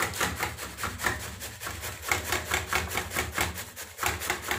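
Raw cauliflower being grated by hand on a stainless-steel box grater, in quick, even rasping strokes of about five a second.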